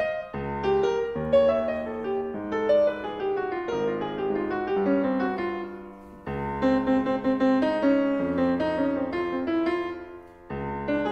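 Yamaha CFX concert grand piano played solo, with held chords under a melody line. Fresh phrases begin about half a second in, around six seconds in and near the end. It is recorded through a Sennheiser MKE-2 lavalier microphone.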